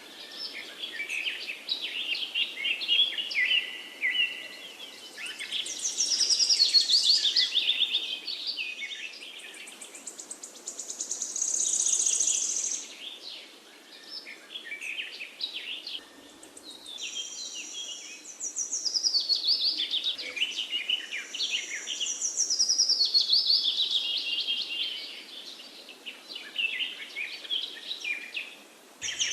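Several songbirds singing at once, in overlapping phrases of rapid high notes a few seconds long, with a faint steady hiss behind them.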